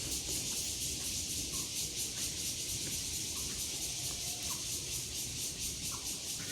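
Chorus of cicadas droning steadily, a high buzz that pulses rapidly, over a low rumble.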